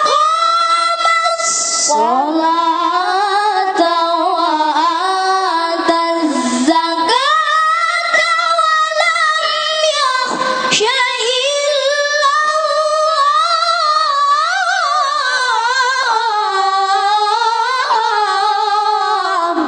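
A child reciting the Quran in the melodic tilawah style, drawing out long ornamented phrases with a short breath about ten and a half seconds in.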